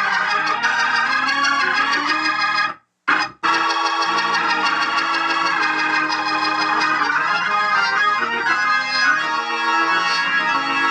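Hammond organ playing sustained chords through its amplifier, sound-checked after cheap capacitors in it were replaced. About three seconds in the sound cuts out abruptly for under a second, then resumes.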